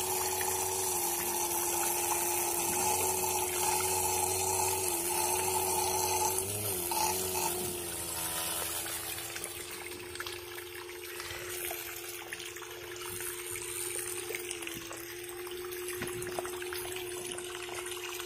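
A homemade mini water pump driven by a 12 V DC motor runs with a steady whine, its pitch dipping briefly twice around the middle. The jet of water it throws sprays and splashes down onto wet mud.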